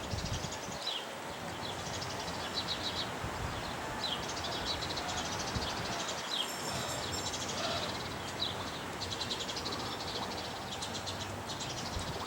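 Small birds chirping and trilling over and over against a steady rural background hiss.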